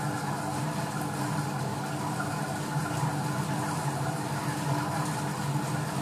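Silvercrest Monsieur Cuisine Connect kitchen robot running its knead function: a steady motor hum as the blade works bread dough in the bowl.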